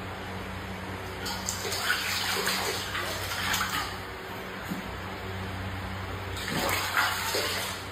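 Water running with a steady rush, over a faint low hum.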